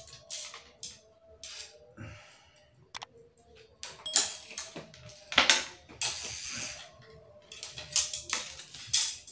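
Fishing line and tackle being unwound and stretched out by hand: a series of short rustling swishes and light clicks, with one sharp click about three seconds in.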